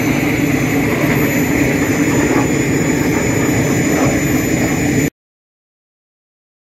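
Jet aircraft engine noise from a flying display: a loud, steady rushing roar. It cuts off suddenly to silence about five seconds in.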